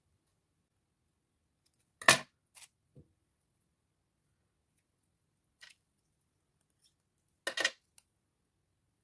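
Scissors snipping in short, separate cuts: a sharp snip about two seconds in followed by two lighter ones, a faint one midway, and another sharp snip near the end.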